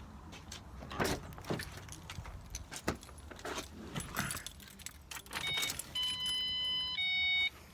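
Car keys jangling and clicking. About five seconds in, the car's electronic warning chime starts: steady tones of several pitches that start and stop sharply, each held about half a second to a second, repeating.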